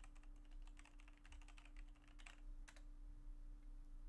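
Faint typing on a computer keyboard: a quick run of keystrokes that stops about three seconds in.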